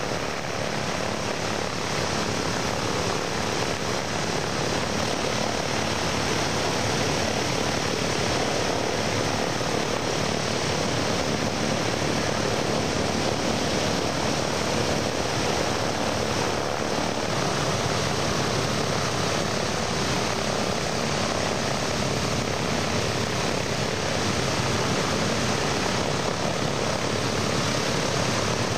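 B-17G Flying Fortress four-engine bomber in flight, its Wright R-1820 Cyclone radial piston engines and propellers running at a steady level.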